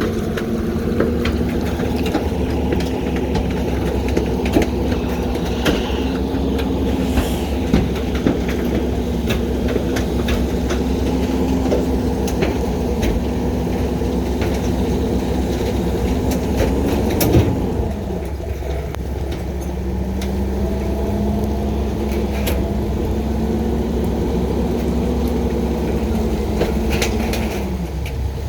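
Heil refuse truck engine held at a raised, steady speed to drive the packer hydraulics, with scattered clanks and ticks. About two-thirds through it drops back with a clank, then climbs again for a second cycle and falls off at the very end.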